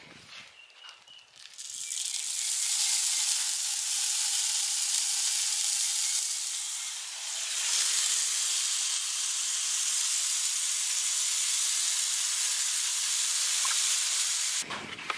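Dry chicken feed poured into a white PVC self-feeder tube: a steady rushing hiss of grains sliding down the pipe that starts about a second and a half in, eases briefly midway, and stops just before the end.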